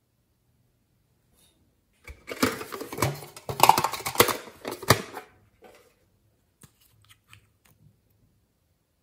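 Clattering and rattling of a metal tin being handled, with a glass nail polish bottle knocking about inside it as it is taken out, lasting about three seconds. This is followed by a few light clicks.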